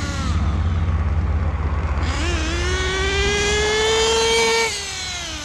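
Dynamite .28 big-block nitro engine in an RC rally car: its whine drops back at the start, then about two seconds in it revs up and climbs steadily in pitch for over two seconds before backing off near the end.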